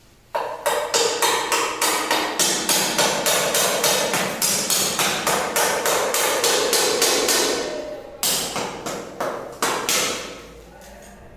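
Hammer blows struck in a rapid, even series, about three a second, with a short break near eight seconds and a few more blows before they stop about ten seconds in.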